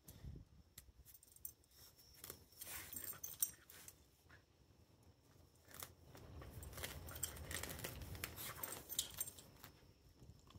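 Dogs ripping up and chewing lawn grass: faint tearing and crackling of grass blades and roots, with scattered clicks and light jingling of collar tags.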